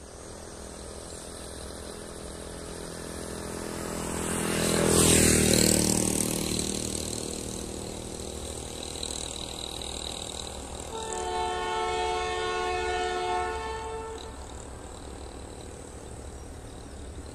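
A distant diesel locomotive horn, the GE BB36-7 of the awaited train, sounds one steady chord for about three seconds, starting about eleven seconds in. Before it, about five seconds in, a road vehicle passes close by, rising to a peak and then falling in pitch as it goes.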